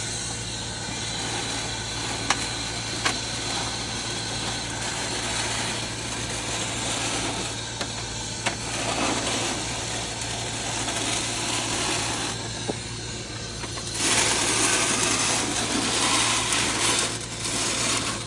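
Electric arc welding: a steady crackling and sizzling arc over a constant electrical hum, with a few sharp ticks, growing louder and denser for a few seconds near the end.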